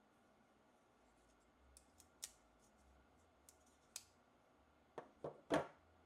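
Klein Tools drop-point folding pocket knife being worked: sharp metal clicks of the blade and cross-bar lock, a couple of light ones and then three in quick succession near the end, the last the loudest.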